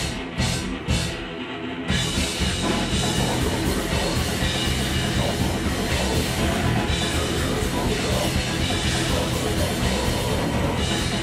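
Heavy metal band playing live: a few separate hits open it, then about two seconds in the full band comes in with a dense, steady wall of sound.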